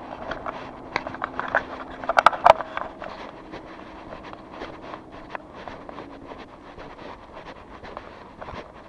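Footsteps of a person walking along a street at a steady pace, with a brief cluster of sharp clicks or rattles about two seconds in, over a faint steady hum that fades after about six and a half seconds.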